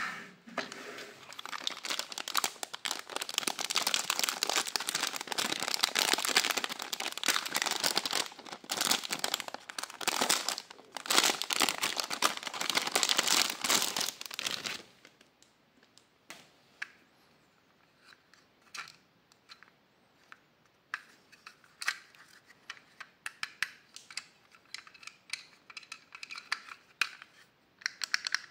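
A clear plastic bag crinkling as it is opened and a small plastic toy pistol is pulled out of it, for about the first fifteen seconds. After that, quieter scattered clicks and taps of the hard plastic toy being handled.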